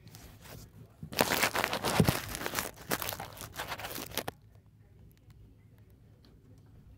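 Loud crinkling and rustling, dense with small crackles, starting about a second in and cutting off after about three seconds.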